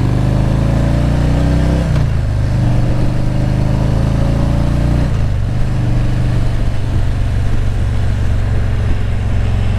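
Motorcycle engine accelerating through the gears. The revs rise, then drop at an upshift about two seconds in, rise again and drop at a second upshift about five seconds in, then run steadily at cruising speed.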